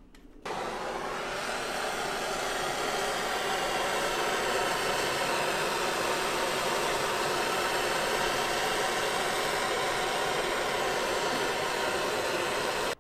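Handheld gas torch burning, a steady hiss of the flame as it heats heat-shrink tubing over spliced wires; it lights about half a second in and cuts off suddenly at the end.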